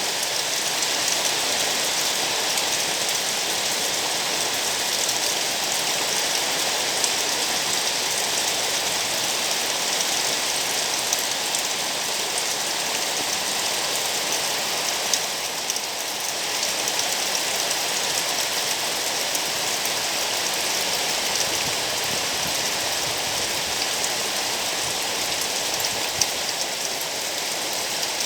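Steady rain falling, a dense even hiss with scattered drops ticking on surfaces.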